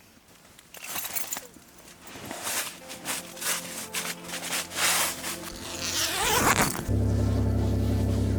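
Scratchy rustling and scraping of gear being handled, with zipper-like sweeps. About seven seconds in, steady background music with a heavy bass comes in.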